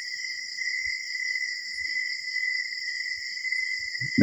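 A steady chorus of insects, crickets by their sound, trilling without a break at several high pitches.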